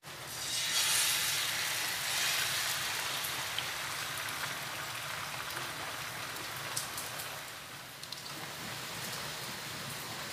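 Beaten egg sizzling in a hot grill pan, a steady frying hiss that swells about a second in as the egg hits the pan and then settles to an even sizzle.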